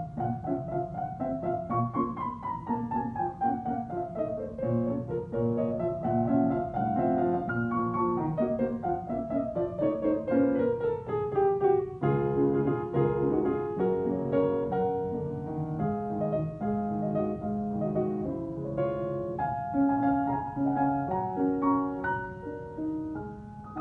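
Grand piano played solo: for the first twelve seconds the melody keeps running downward in long stepwise passages over lower notes, then it changes to shorter, denser phrases of chords and repeated notes.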